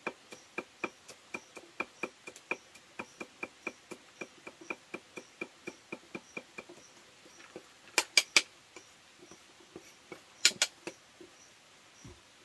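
Rapid, even tapping, about four strikes a second, stops after about six and a half seconds. Then come three quick, louder sharp knocks and, a little later, two more: hand-tool strikes in the work of making a trough. An insect chirps steadily underneath.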